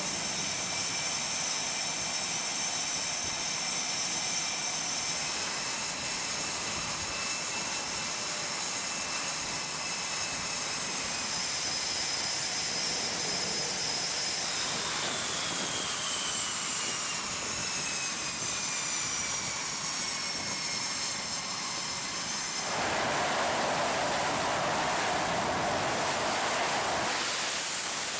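Jet aircraft engines running on a carrier flight deck: a high turbine whine over a constant rushing noise, with whining tones that slowly fall in pitch around the middle. About two-thirds of the way through, a louder, rougher rushing noise comes in.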